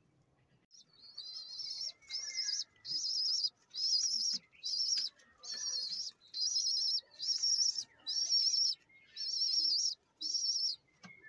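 High-pitched, warbling bird chirps repeating at an even pace, about one every three-quarters of a second, starting about a second in.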